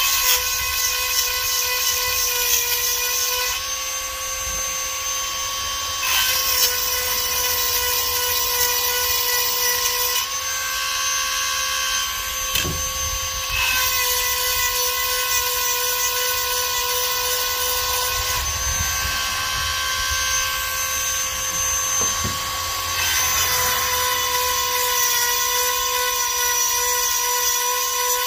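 Small handheld rotary tool with a grinding stone, running at a steady high-pitched whine while sharpening the cutters of a chainsaw chain. The tone shifts slightly every few seconds as it works from tooth to tooth.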